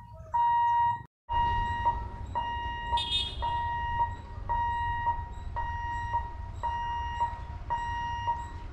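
Railway level-crossing warning alarm beeping: one high electronic tone repeating about twice a second, with a brief drop-out about a second in.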